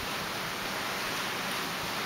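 Surf breaking on a coral reef, heard as a steady, even wash of noise with no separate crashes standing out.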